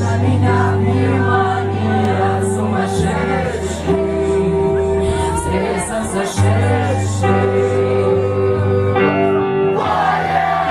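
Live rock band playing, with a singer's voice carrying the melody over sustained bass notes and guitar chords.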